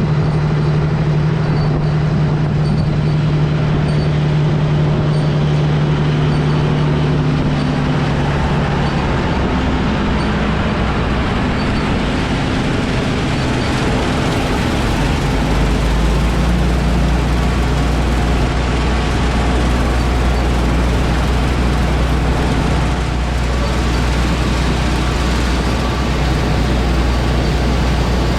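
Heavy farm machinery engine running steadily under load. Its tone shifts about a third of the way in, and a deep low hum comes in about halfway through.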